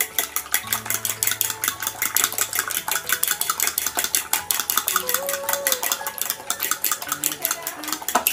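Raw eggs with salt being beaten by hand with a metal spoon in a plastic bowl: a fast, even run of clicks as the spoon knocks against the bowl.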